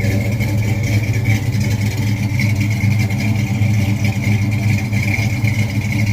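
Car engine running steadily and loudly, then cutting off abruptly.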